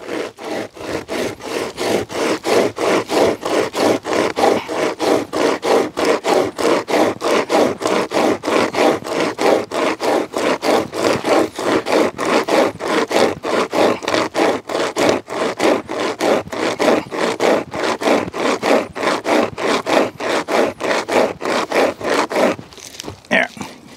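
Nordic Pocket Saw, a hand-pulled pocket chainsaw of steel cutter links, sawing through a log of sugar maple in a quick, even rhythm of rasping strokes. The strokes stop shortly before the end as the chain jams, pinched in the cut by the weight of the log.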